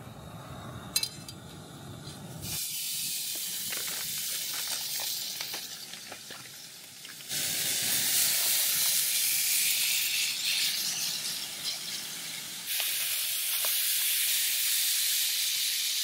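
Gas canister camping stove burning under a frying pan, then seasoned steaks sizzling in the hot pan with scattered pops and crackles. From about two and a half seconds in the sizzle is loud and steady, and it jumps louder twice more, at about seven and thirteen seconds.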